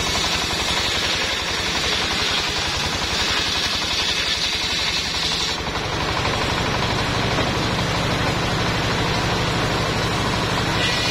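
Engine-driven circular sawmill running under load: the engine chugs with a fast, even beat under a high whine from the spinning saw blade. A little past halfway the whine cuts off and the engine note gets heavier as a log is pushed into the blade.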